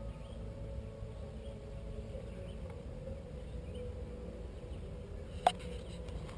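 Bicycle rolling along a dirt trail: a steady low rumble with a faint steady hum, and one sharp click about five seconds in.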